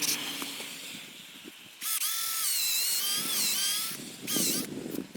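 Cordless drill boring a tap hole into a maple trunk: a run of about two seconds with the motor's whine dipping and rising as it bites into the wood, then a shorter burst whose whine falls away.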